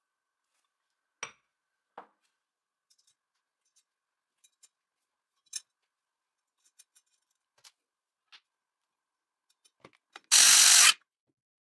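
Scattered light clicks and taps of aluminium CNC frame parts and screws being handled. Near the end, a short, loud burst of noise lasting about half a second.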